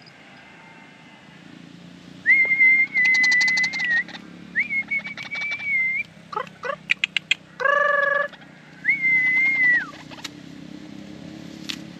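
White-breasted waterhen (ruak-ruak) calls: a run of loud whistled notes with a fast rattle in them, some falling away at the end, with a short honking note in the middle.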